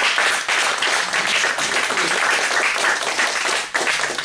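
A small audience applauding, a dense patter of hand claps that thins out near the end.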